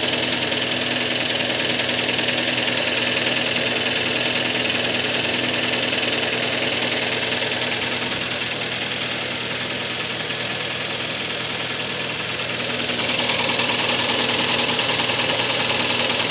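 Kia Sportage III engine idling with a rapid, steady knock, growing louder about 13 seconds in. The owner says the knock is there from cold and gets worse as the engine warms.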